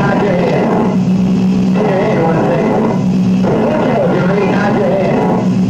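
Music: a steady low drone under a wavering melody line that comes in phrases about a second and a half long.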